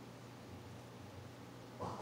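Quiet room tone with a low steady hum. A short rustling handling noise starts near the end.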